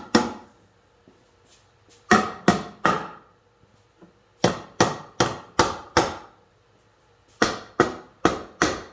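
Hammer tapping the case dowels of a BorgWarner 44-46 transfer case to seat the case halves: sharp taps, each with a short ring, in runs of three to five at about two and a half a second, with pauses between the runs.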